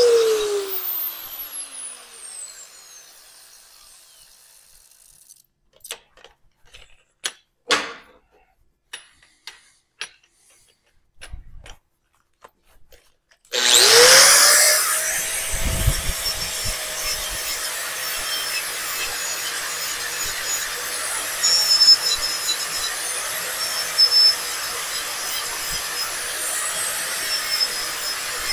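An angle grinder spins down after being switched off, its whine falling away. A quiet pause follows with a few clicks and knocks of tools being handled. About halfway through, an angle grinder starts suddenly and runs at a steady pitch, grinding the end of a steel exhaust tube.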